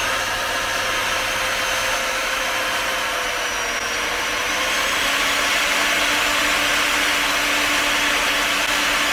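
Upturned electric sander running steadily, its spinning sanding disc grinding down a foam paint roller pressed against it to cut it into small 'sausage' rollers.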